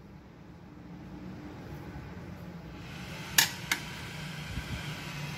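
Desktop PC cooling fans (power supply, CPU cooler and graphics card fan) whirring with a low hum, slowly getting louder, with two sharp clicks about three and a half seconds in.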